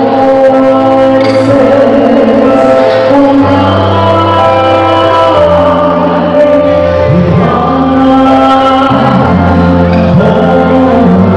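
A man singing a traditional Christmas song into a handheld microphone, amplified, over instrumental accompaniment with held chords.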